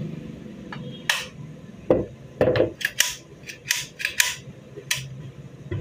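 A string of about eight sharp metallic clacks, irregularly spaced, from the mechanism of a 30-bore MP5-pattern rifle being worked by hand while it is assembled, its part just oiled to make it move freely.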